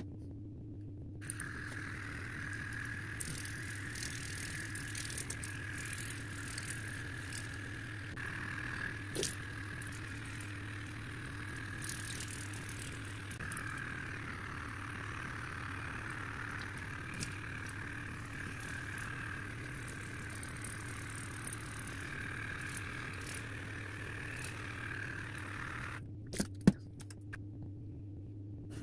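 Cordless water flosser running in its softest mode, a steady motor-pump whine with water spraying and splashing in the mouth. It switches off near the end, followed by a couple of sharp clicks.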